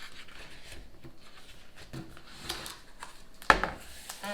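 Soft rustling and handling sounds in a small room, with one sharp knock about three and a half seconds in.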